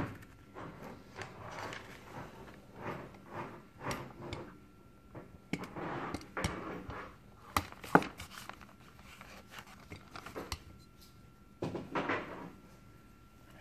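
Hands working on a carburetor being reassembled on a workbench: scattered light knocks and clicks of small parts being picked up and set down, with one sharp click about eight seconds in.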